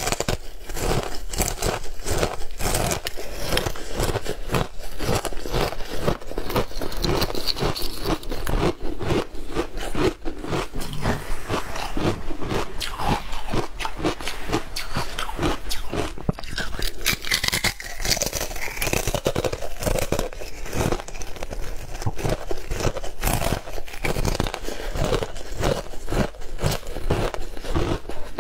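Close-miked biting and chewing of frozen matcha ice, a dense unbroken run of crisp crunches and crackles as the hard ice breaks between the teeth.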